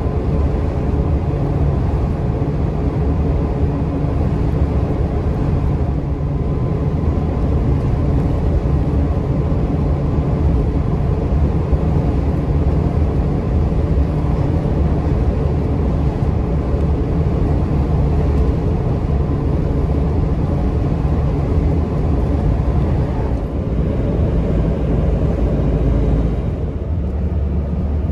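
Steady low rumble of engine and tyre noise from a vehicle driving along at road speed, heard from inside the vehicle.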